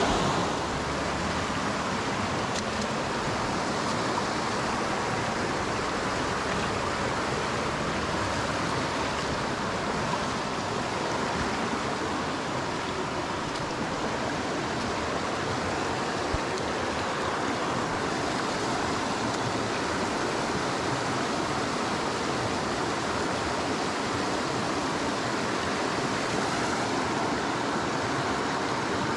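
Steady rush of a shallow mountain stream running over rocks and riffles, an even wash of water noise.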